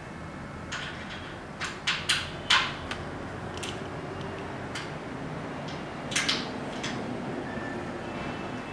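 Sharp metallic clicks and clacks of a projection screen's metal frame pieces being fitted together at a corner joint: a quick run of four about two seconds in and a pair a little past six seconds, over a steady low room hum.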